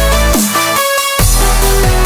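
Electronic dance music with heavy bass and repeated downward pitch sweeps; the bass drops out for under a second near the middle, then comes back.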